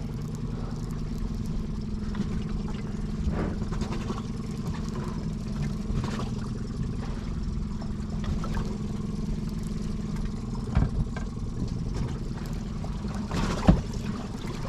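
A fishing boat's engine running steadily at a low, even speed, with two short sharp knocks near the end.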